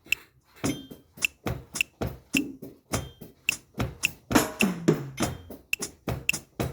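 A bachata rhythm played on Latin percussion and a Yamaha DTXPRESS III electronic drum kit: an even pattern of sharp clicking strikes, about three to four a second, over low drum thuds. A pitched drum note drops in pitch about four and a half seconds in.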